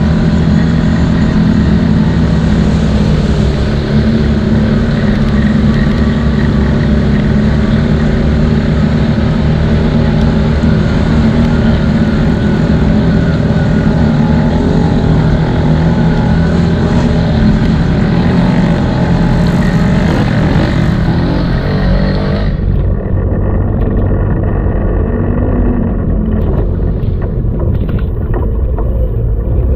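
CFMoto 800 ATV engine running steadily under throttle while it drives through muddy water, with water splashing. About three-quarters of the way in, the sound suddenly turns muffled as the high hiss drops away.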